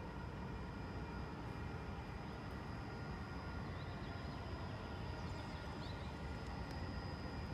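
Steady low rumble of a moving vehicle, with several faint constant whining tones over it.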